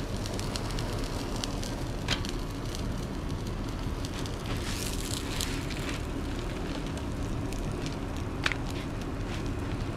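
Food sizzling and crackling on a hot griddle, with scattered pops, a few sharper ones, and a brief louder hiss about halfway through.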